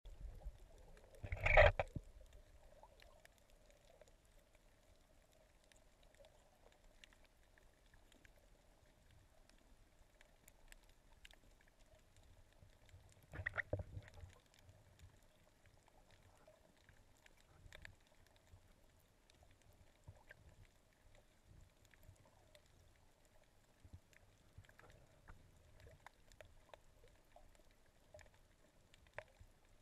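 Muffled underwater ambience heard through a camera's waterproof housing: a faint steady hum and scattered small clicks. A loud muffled rush of water noise comes about a second and a half in, and a weaker one around thirteen seconds in.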